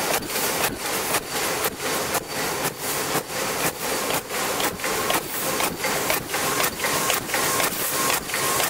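Paper bowl forming machine running at production speed, a dense mechanical clatter and hiss that pulses evenly about three times a second.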